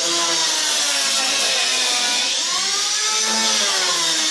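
A motor running steadily, its pitch wavering slowly, dipping and rising again about midway.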